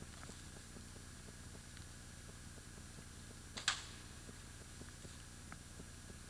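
Steady low hum and hiss, with one short, sharp crack a little past halfway.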